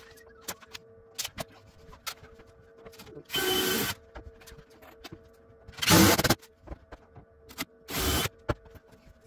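Cordless impact driver running in three short bursts about two seconds apart, driving the screws that fasten an upper kitchen cabinet to the wall and leaving them barely snug. Light clicks and knocks between the bursts.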